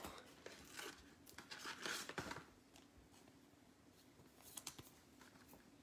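Faint rustling and light ticks of 2020 Panini Mosaic football trading cards being handled, loudest between about one and two and a half seconds in, with a brief quieter rustle near the end.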